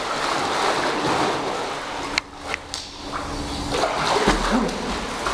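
Water splashing and churning as a swimmer does front crawl (freestyle) across a swimming pool, arms striking the surface, with a brief lull about two seconds in.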